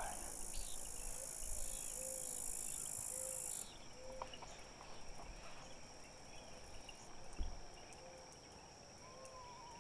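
Insects chirping in a dense, steady high-pitched chorus that cuts off abruptly about a third of the way in, leaving faint field ambience with a thin steady high whine, soft short notes repeating about once a second, and a low thump near the end.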